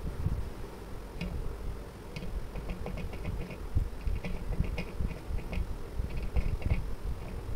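A person eating rice and curry by hand from a metal plate and bowl: soft irregular clicks and ticks from about a second in, over low rustling and thumps close to the microphone.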